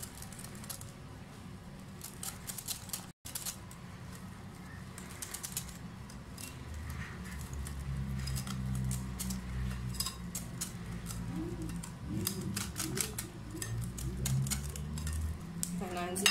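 Wire whisk clicking and tapping rapidly against a glass bowl as flour is beaten into a thin cake batter. A low hum joins underneath from about six seconds in.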